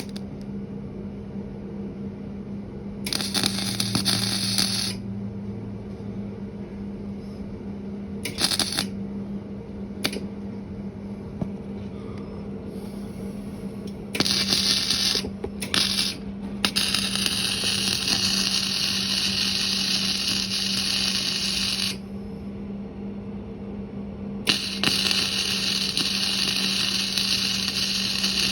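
Stick-welding arc crackling, first in short bursts where the arc strikes and breaks off, then in longer steady runs from about halfway on. A steady low hum runs underneath.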